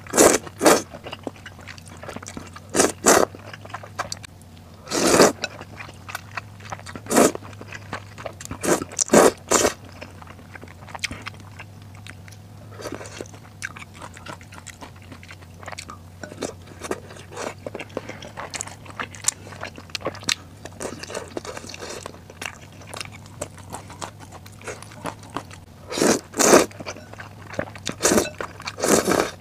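Close-miked eating of snail noodles from a bowl: loud short slurps as chopsticks draw noodles into the mouth, mostly in the first third and again near the end, with quieter chewing in between.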